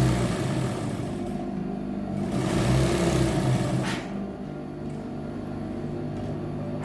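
Electric sewing machine running in two bursts of about two seconds each, stitching a side seam. It stops about four seconds in.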